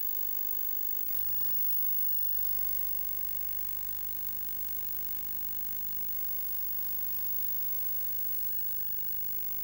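Steady rushing hiss, with a low rumble that comes up about a second in, from a Severn-class lifeboat running fast through choppy sea.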